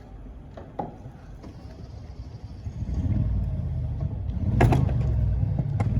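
A vehicle engine running, its low rumble growing louder about halfway through, with a click about a second in and two sharp knocks in the last second and a half.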